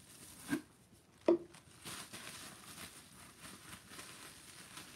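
Bubble wrap crinkling with many small crackles as a wrapped jar is handled and unwrapped, after two brief bumps in the first second and a half.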